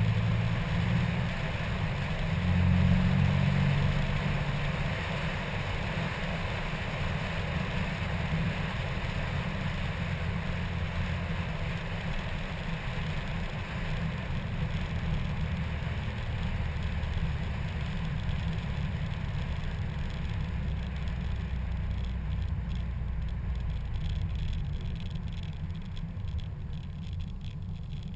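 Heavy wind rush and rumble on a car-mounted camera as a 2003 Nissan Maxima runs at speed, with its engine note underneath. The rush eases and gets quieter over the last several seconds.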